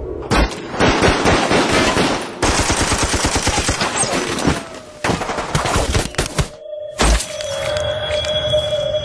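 Automatic fire from Kalashnikov-type assault rifles: long, rapid bursts of shots with brief breaks, stopping about six and a half seconds in. After a short silence comes one more heavy shot, then a steady high ringing tone.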